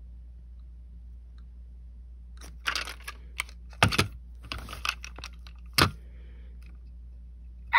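A few sharp clicks and short plastic rattles as fingers handle a Road Rippers toy car and press on its roof, the loudest clicks about four and six seconds in.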